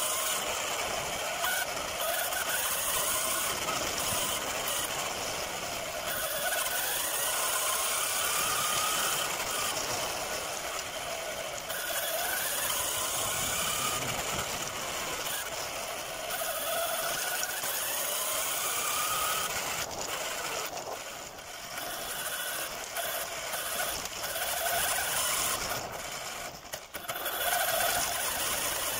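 Radio-controlled model cars running, their motors and gears whining in a pitch that rises and falls again and again as they speed up and slow down.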